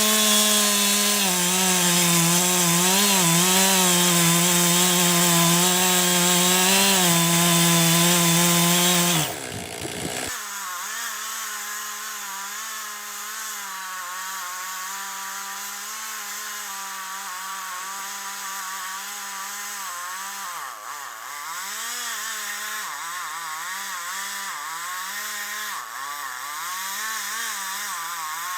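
Chainsaw engine running at high revs while cutting logs. About nine seconds in, the sound changes abruptly to a quieter, thinner chainsaw note. Its pitch sags briefly a few times in the second half as the saw is loaded in the cut.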